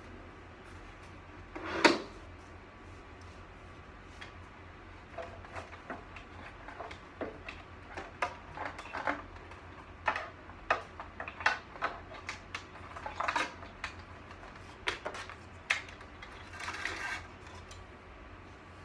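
Hard plastic and metal parts of a medical computer cart clicking, knocking and rattling as it is assembled by hand. One loud knock comes about two seconds in, followed by a run of lighter clicks and taps and a short scrape near the end.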